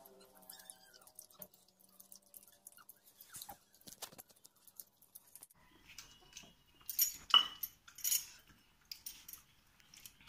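Eating at a floor meal: fingers working rice on steel plates, chewing, and small clinks of steel dishes and tumblers, mostly faint. A cluster of sharper metal clinks and knocks stands out about seven to eight seconds in.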